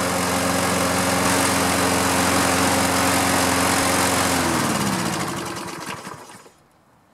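Toro Recycler lawn mower engine, fully warmed up after about 15 minutes of running, runs steadily. About four and a half seconds in it is shut off, and its pitch falls as it winds down to a stop.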